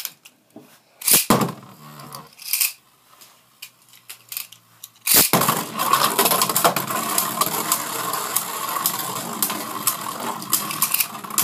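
Two Beyblade Burst tops, Z Achilles and Wonder Valtryek, are ripped into a plastic Rail Rush stadium with a sudden loud launch about five seconds in, after a few short scrapes. Then the tops spin with a steady whirr on the plastic floor, with many sharp clicks as they knock together and against the stadium.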